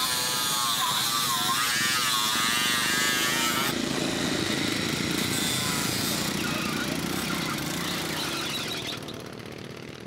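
Angle grinder cutting metal, its pitch wavering under load, for the first few seconds. It cuts off suddenly and gives way to a racing lawn mower's engine running as the mower pulls away, fading near the end.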